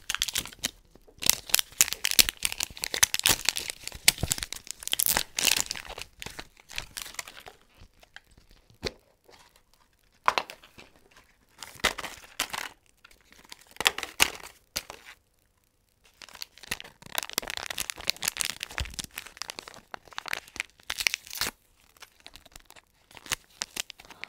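Small plastic wrapper packets being torn open and crinkled by hand, in irregular bursts of rustling with short pauses between them.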